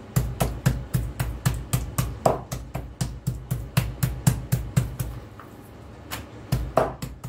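Metal meat mallet pounding chicken fillet on a plastic cutting board: an even run of thuds, about four a second, stopping about five seconds in, then a few more strikes near the end. The fillet is being beaten only lightly, just enough to break the fibres.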